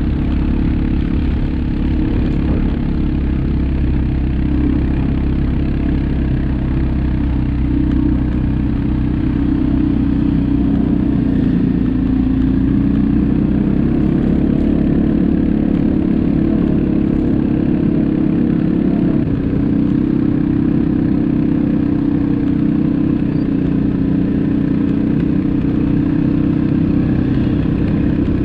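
ATV engine running steadily under way, its pitch shifting slightly now and then.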